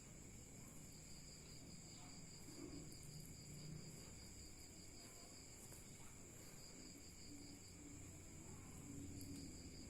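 Near silence: faint room tone with a steady, high-pitched insect-like drone.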